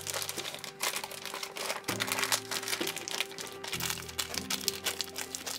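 Plastic zipper storage bag crinkling and crackling as hands knead raw chicken breast pieces and seasoning inside it. Soft background music with held chords runs underneath, changing about every two seconds.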